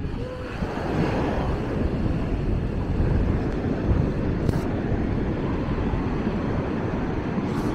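Steady wind rumbling on the microphone over the wash of ocean surf, with no distinct events standing out.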